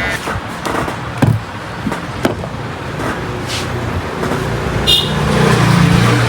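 Road traffic noise with a motor vehicle's engine growing louder toward the end. There are a few sharp clicks in the first couple of seconds.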